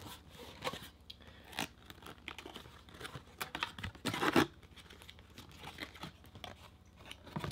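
Cardboard packaging handled by hand: a box flap lifted and an inner cardboard insert slid out, giving scattered rustles, scrapes and light taps, with a louder rustle about four seconds in.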